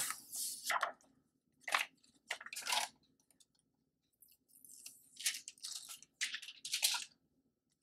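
Protective plastic film being peeled off a new smartphone, crinkling and crackling in irregular bursts, with a pause of about two seconds in the middle.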